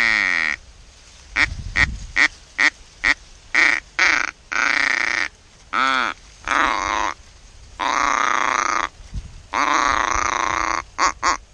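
Mallard duck call blown by a hunter to bring in approaching ducks: a run of short, quick quacks, then several longer, drawn-out quacks that fall in pitch.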